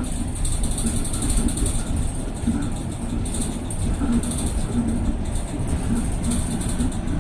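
CRRC Hengtong CKZ6105BEV05 battery-electric city bus under way: a steady low rumble from the running gear, with a high, steady whine from its electric drive motor.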